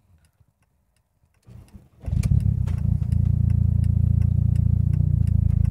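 Turbocharged car engine starting, heard from inside the cabin: a brief faint crank about a second and a half in, then it catches and settles into a steady idle.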